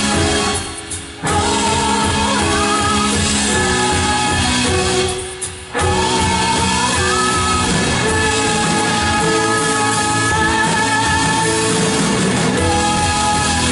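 Church worship band playing a song with singing; the music drops away briefly twice, about a second in and again about five seconds in.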